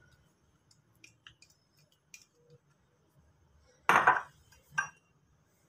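Glass kitchen bowls being handled and clinking: a few faint taps, then a louder clink about four seconds in and a smaller one just after.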